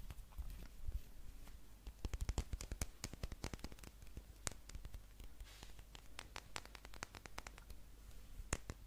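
Close-miked ASMR tapping: sharp taps and clicks, with a fast run of taps about two seconds in, then slower scattered single taps.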